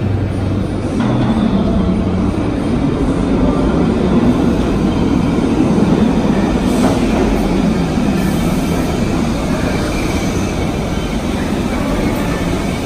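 A set of R62A New York City subway cars approaching through the tunnel and rolling into an underground station: a steady rumble of wheels on rail that builds to its loudest about halfway through.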